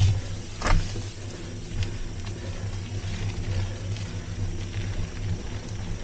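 Polygon Xtrada 7 mountain bike rolling over a dirt trail: a steady low rumble of tyres and riding, with a sharp knock at the start and another just under a second in as the bike hits bumps.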